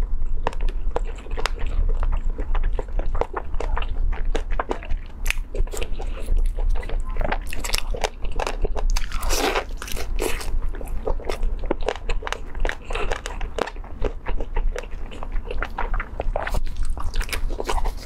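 Close-miked crunching and chewing of a deep-fried, rice-stuffed chicken wing: crisp batter breaking in many sharp crunches, heaviest about halfway through.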